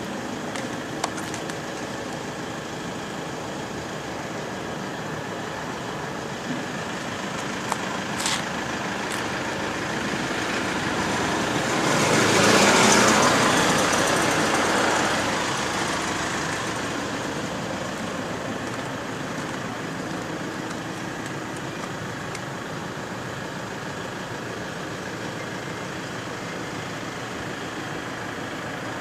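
Steady road traffic noise, with one vehicle passing close by about twelve seconds in, swelling up and then fading away. A few short clicks come earlier.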